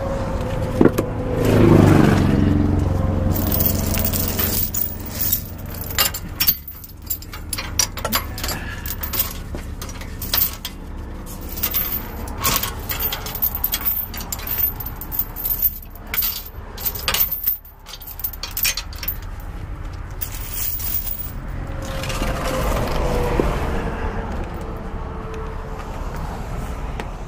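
Steel tow chains rattling and clinking, with many sharp knocks of links as they are handled and hooked to chain down a disabled dump truck. Traffic passes near the start and again near the end, each time with a falling pitch.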